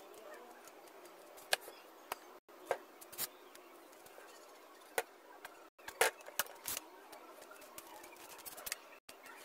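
Scattered light taps and clicks, about ten in all, over faint room noise, as white acrylic paint is flicked and drizzled onto a canvas.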